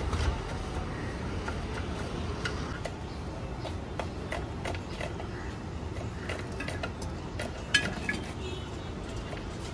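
Kitchen knife chopping onions and green chillies on a wooden cutting board: a run of quick, irregular taps, one sharper knock about eight seconds in, over a steady low rumble.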